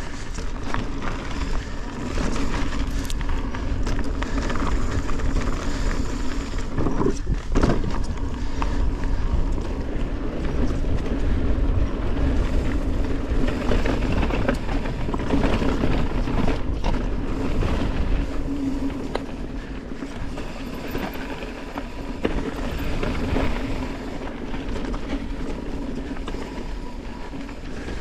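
Mountain bike rolling down a dirt and gravel trail: knobby tyres running over the ground and the bike rattling over bumps, with a deep rumble under it all. A couple of sharper knocks come about seven to eight seconds in.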